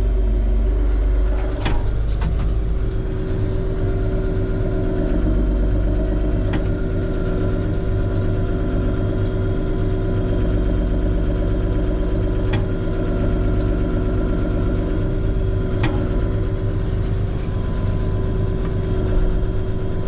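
John Deere 5075M tractor's four-cylinder diesel engine running steadily without revving, heard from inside the closed cab, with a few short sharp clicks now and then.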